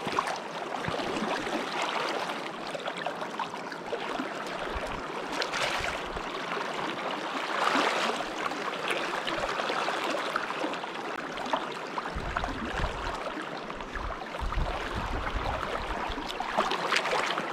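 A shallow stream running fast over rocks right at the microphone, a steady rushing babble, with a couple of brief louder splashes a few seconds in. Low wind rumble on the microphone comes in during the second half.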